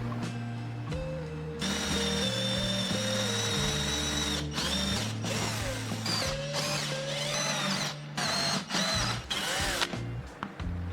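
A small power tool's motor running in several bursts from about two seconds in until near the end, with a high whine that slides in pitch as the load changes, over background music.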